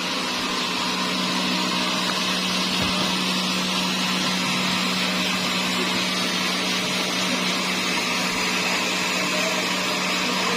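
Sawmill saw sawing a dry teak log, running steadily: a constant motor hum under an even whirring cutting noise.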